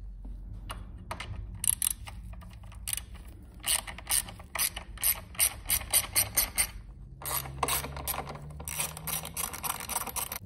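Quarter-inch drive ratchet with a 10 mm long socket clicking as a motorcycle battery terminal bolt is turned, in quick runs of sharp clicks that pick up from a few scattered ones to steady strings from about a third of the way in.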